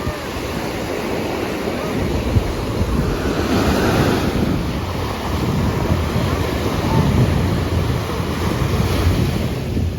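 Ocean surf washing onto the beach, swelling louder a few seconds in, with wind buffeting the microphone as a low rumble.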